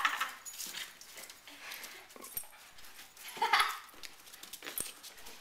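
Two West Highland white terriers greeting excitedly, with three loud breathy huffs spaced about a second and a half apart and quieter scuffling between.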